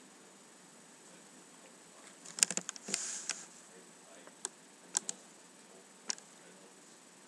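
A cat swatting at a hand on a quilted bed: sharp clicks and taps of paws on hand and bedding, a tight flurry of them with a short rushing noise about two and a half seconds in, then single taps now and then.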